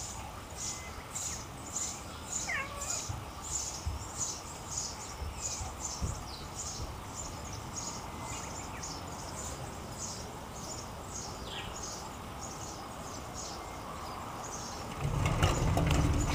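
Outdoor ambience: a high-pitched chirp repeating steadily about twice a second, with a few separate bird-like chirps. Near the end a louder low rumble, like wind or handling on the microphone, comes in.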